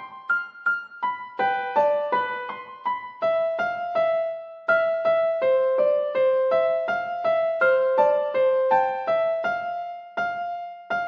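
Background music: a slow, gentle keyboard melody of struck piano-like notes, about two to three a second.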